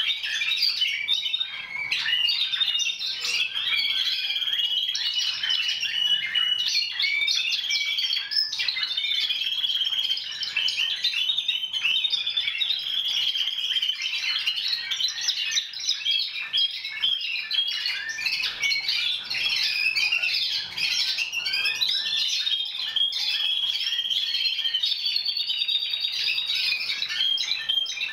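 Many caged Timbrado Español song canaries singing at once: a dense, continuous chorus of rapid trills and held high notes.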